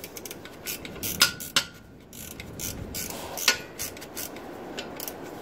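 Ratchet and socket working a 15mm exhaust flexi-pipe nut loose: three sharp metallic clicks with a short ring, with fainter clinks and handling noise between.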